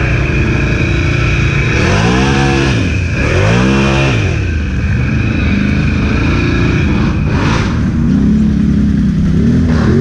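Can-Am Renegade ATV's V-twin engine revving twice in quick rise-and-fall bursts, then pulling steadily, with a thin high whine under it for most of the first seven seconds.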